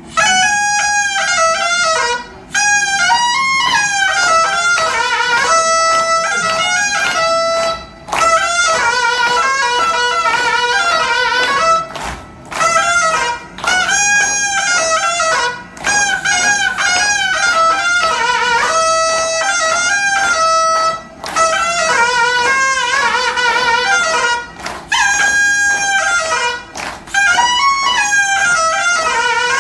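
A Korean double-reed wind instrument playing a loud solo melody in phrases, with short breaks between them.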